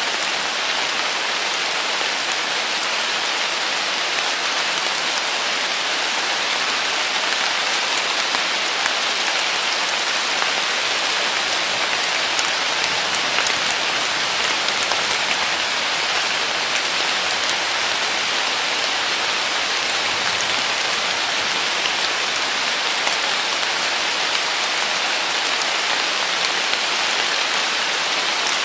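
Heavy summer rain pouring down steadily: a dense, even hiss of falling rain with a few sharper drop ticks.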